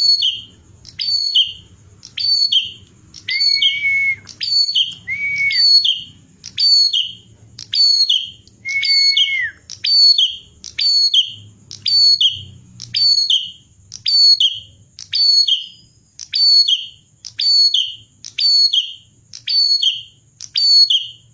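Prinia (prenjak klawu) singing a fast, even run of short chirping phrases, about one and a half a second, each a sharp falling high note followed by a lower one. A few times a lower, flat whistled note is added, twice near the start and once about nine seconds in.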